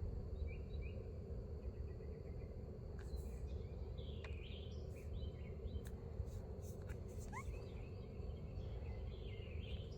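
Steady low background rumble, with many short high chirps scattered through it and a few sharp clicks.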